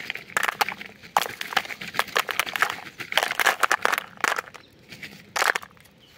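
Dry leaf litter, grass and fallen tamarind pods crackling and crunching in quick, irregular bursts, dying away near the end.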